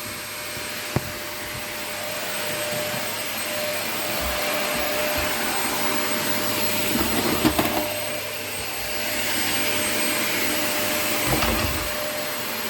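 Vacuum cleaner running steadily, its motor noise carrying a steady whine. There is a sharp click about a second in, and a few bumps and rattles around the middle and again near the end.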